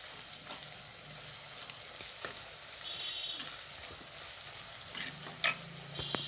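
Sliced onions, green chillies and curry leaves sizzling in hot oil in a black chatti while a steel spoon stirs them, with scattered clicks and scrapes of the spoon against the pot and one sharper clack about five and a half seconds in.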